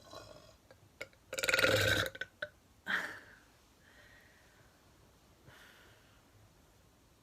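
A young woman belching once, a loud, rattling burp of under a second about a second and a half in, followed about a second later by a shorter, quieter sound.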